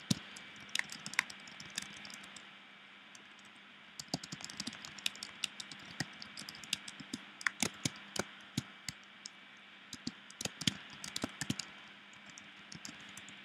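Typing on a computer keyboard: quick, uneven key clicks, a few at first, then a steady run of keystrokes from about four seconds in until near the end.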